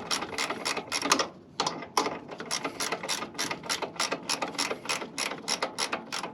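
Hand ratchet wrench clicking quickly as it backs out the top bolt of a Honda Civic's front suspension, with a short pause a little over a second in.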